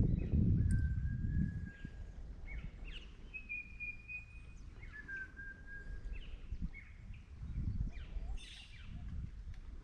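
A bird calling in long, steady whistled notes of about a second each: three in all, the middle one higher than the other two. A low rumble is loudest near the start and then eases off.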